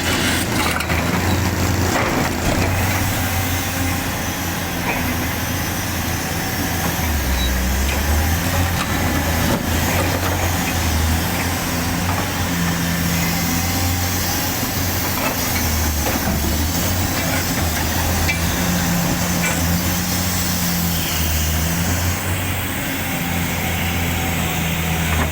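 Large excavator's diesel engine running steadily, its note swelling and easing every few seconds as the machine works under changing load.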